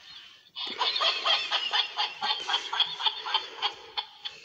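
Animated plush cat toy laughing: a rapid, high-pitched, chattering laugh that starts about half a second in and runs for about three seconds.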